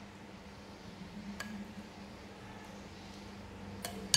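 Metal spoons clinking against ceramic bowls and plates: a few light, separate clinks, the sharpest one at the very end, over a faint steady hum.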